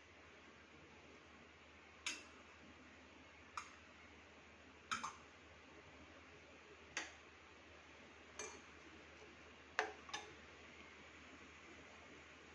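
Metal spoon tapping against a cooking pot as grated ginger is knocked into the simmering decoction: seven light clinks one to two seconds apart, the last two in quick succession, over a faint steady hiss.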